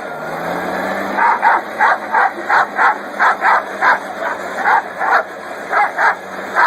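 A dog barking in a rapid run of short barks, about three a second, starting about a second in.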